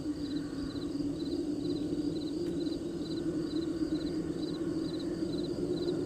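Crickets chirping, each chirp a quick three-pulse trill repeated evenly about twice a second, over a steady low hum.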